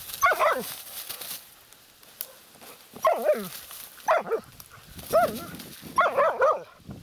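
Laika hunting dog barking at an animal's hole in a reed mound, where it scents quarry. The barks are short and yelping, with the pitch falling: one right at the start, then about one a second from three seconds in, five in all.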